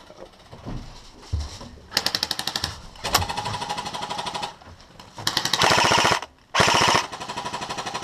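Airsoft electric guns (AEGs) firing several full-auto bursts of rapid clicking shots, with the two loudest bursts a little past the middle.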